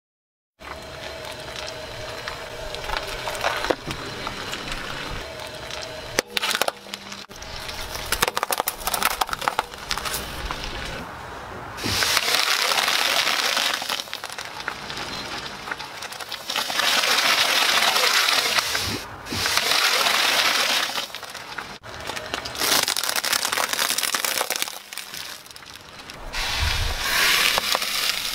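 A car tyre crushing a series of small objects one after another, with cracks, snaps and crunches and several stretches of steady hissing noise between them. Near the end, sticks of chalk crunch under the tyre.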